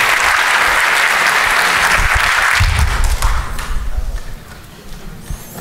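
Audience applauding, the clapping dying away about three seconds in, with a few low thumps underneath.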